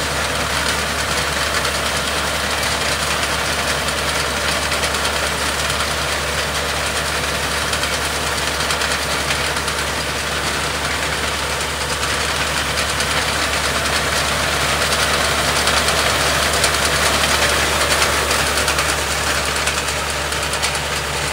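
John Deere tractor's diesel engine running steadily while its front-mounted Vasundhra Super Reaper cuts standing paddy, with the cutter bar rattling continuously. It grows a little louder in the second half as the machine comes closer.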